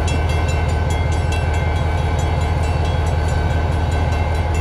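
An EMD SD40-2 diesel-electric locomotive's 16-cylinder two-stroke 645 engine running close by: a steady, loud, deep rumble with faint rapid ticking over it.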